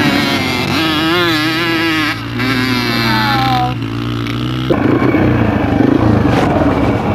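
Dirt bike engines revving, their pitch wavering up and down, as the bikes climb a steep dirt hill. About two-thirds of the way through, a louder rushing noise takes over.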